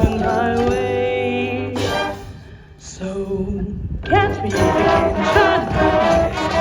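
Marching band music with sustained brass chords, dropping away briefly about two seconds in, then coming back with a voice singing over the band.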